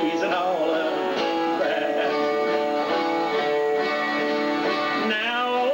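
Country-style instrumental break on guitars: acoustic guitars strumming while a lead guitar plays a melody with bending notes.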